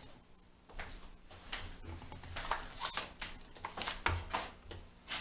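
A person moving about close to the microphone: irregular rustling and scraping with a few soft low thuds.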